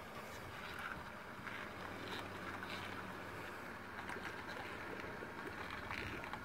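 Vehicle engine running faintly at low revs as it slowly reverses a boat trailer down a launch ramp into the water, over a steady background hiss with a few light ticks.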